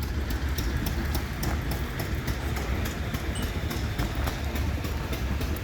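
An engine running with a steady low rumble and a quick, even clatter of ticks.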